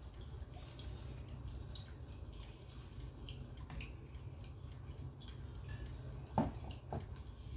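Water dripping: scattered light drips over a low steady rumble, with two louder plops, about six and seven seconds in.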